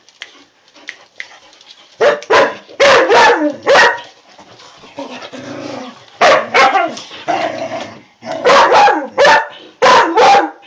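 Clumber spaniel barking loudly in quick bursts during rough play with the other dogs. The barking starts about two seconds in and comes in clusters, with a quieter stretch in the middle.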